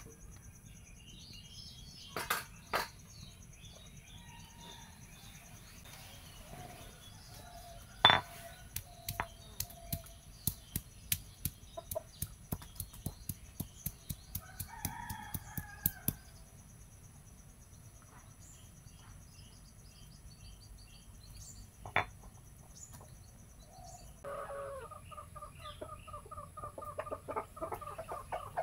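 Sharp stone-on-stone knocks, about two a second, from a hand-held grinding stone crushing spices on a flat stone slab. In the last few seconds chickens start clucking, and small birds chirp faintly now and then.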